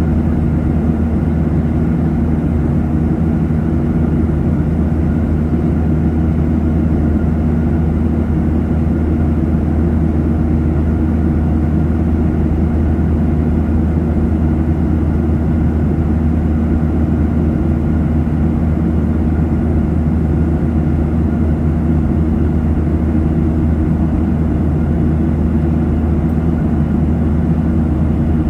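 Steady cabin noise inside a jet airliner in flight: an even, low drone of the engines and rushing air with a constant hum underneath.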